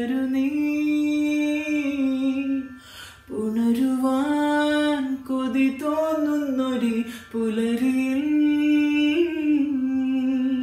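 A man singing solo in slow, long-held notes, in three phrases with short breaks for breath about three and seven seconds in.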